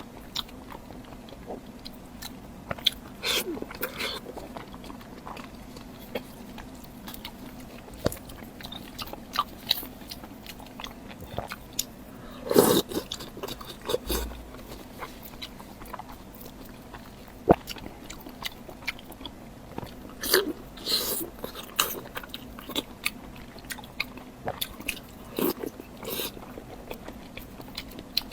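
Close-miked eating sounds from sliced boiled pork in garlic sauce: chewing with wet mouth smacks and irregular clicks, in a few louder clusters.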